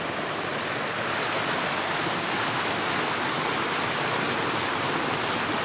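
Mountain creek rushing steadily below a footbridge: an even, continuous sound of flowing whitewater.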